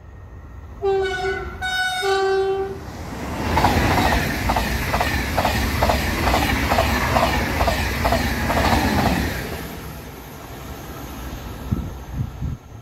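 Train horn sounding two short blasts, then the train passing with a regular clatter of wheels over the rail joints, about two knocks a second, which fades away. A few short thumps near the end.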